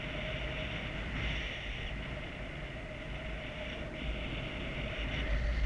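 Wind rushing over the microphone of a paraglider pilot's camera in flight: a steady rush with a low buffeting rumble that grows louder near the end, and a thin steady tone underneath.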